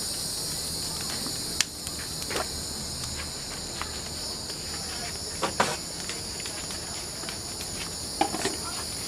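Steady, high-pitched chorus of insects, with a few scattered knocks and taps close by.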